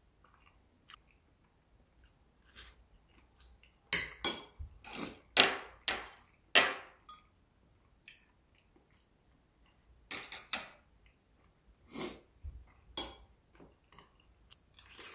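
Eating sounds: a metal spoon scooping curry rice from a ceramic bowl, and close-up chewing. A dense run of loud sounds comes about four to seven seconds in, then a few scattered ones later.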